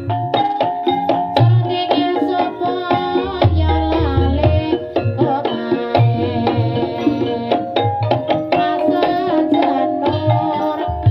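Javanese gamelan music accompanying an ebeg dance: steady ringing metallophone notes over a driving kendang hand-drum pattern with deep, repeated strokes.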